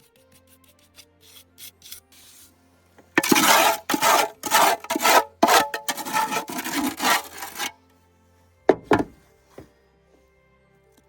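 A run of rough scraping strokes for about four seconds, several in quick succession, then one more sharp scrape; soft background music underneath.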